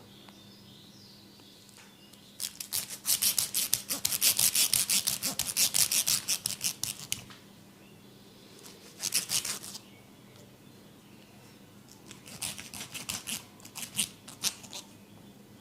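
Rapid, crisp strokes of a barber's hand tool on the head and hair, close to the microphone, at about five or six a second. They come in three runs: a long one of about five seconds, a short one about halfway through, and a looser one near the end.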